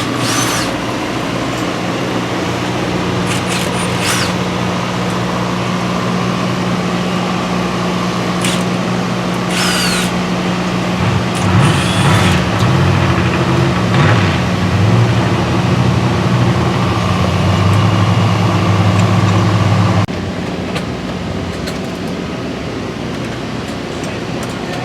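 A motor running steadily, wavering up and down in pitch partway through, then cutting off suddenly about 20 seconds in, with several short sharp hisses or clanks over it.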